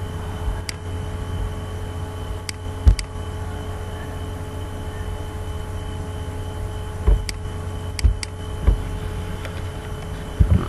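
A steady low electrical hum with a faint high whine, with scattered sharp computer mouse clicks, about eight of them, the loudest about three seconds in.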